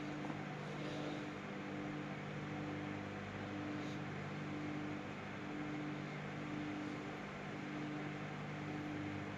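Solo microwave oven running at medium-low power while a papad cooks: a steady hum with a higher tone that pulses on and off about once a second.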